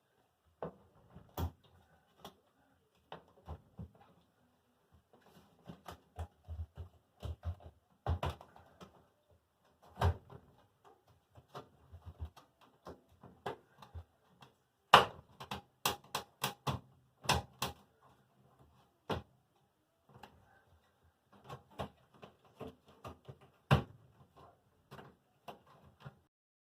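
Irregular clicks, taps and knocks of hands and tools working a front-load washer's door seal and metal cabinet, with a quick run of sharper knocks about fifteen seconds in.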